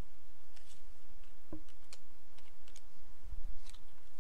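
Sparse soft clicks and taps of trading cards being handled in the hands, with a brief low bump about three seconds in.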